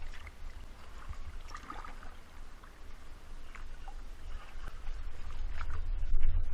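Sea water sloshing and splashing around a GoPro in its waterproof housing held at the surface, with a low rumble underneath that swells about five to six seconds in.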